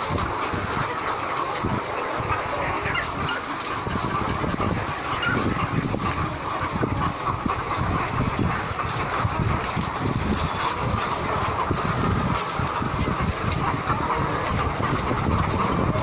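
Steady din of a caged laying-hen house: a great many layer hens clucking and calling at once, over a constant irregular clattering.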